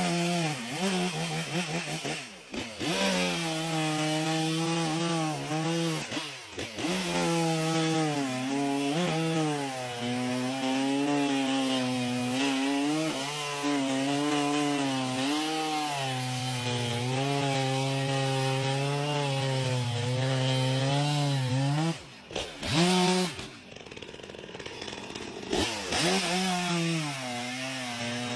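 Chainsaw cutting into wood, its engine note sagging and wavering as the chain bites under load. The engine drops off briefly a few times, with a longer lull about three quarters of the way through, then bites in again.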